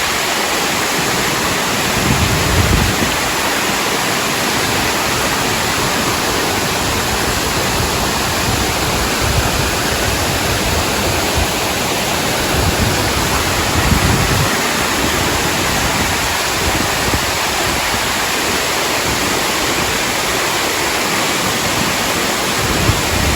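Waterfall rushing: a loud, steady hiss of falling water, with a few brief low wind buffets on the microphone, about two seconds in, around the middle and near the end.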